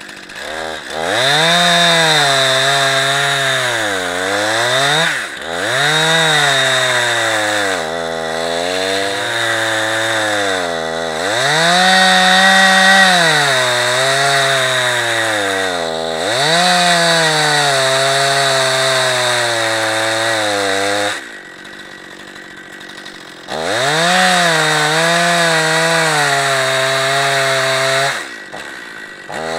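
Gas chainsaw mounted in an Alaskan-style chainsaw mill, ripping a slab lengthwise from a log. The engine pitch keeps sagging under the load of the cut and climbing back. It drops away briefly a little past two-thirds through, then revs up and cuts again.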